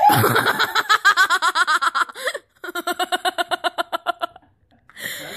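A person laughing hard in high-pitched giggles: a long run of quick ha-ha pulses, a short break, then a second long run.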